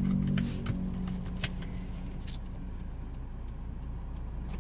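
A warm Toyota RAV4 engine idling steadily, with a few light clicks in the first second and a half.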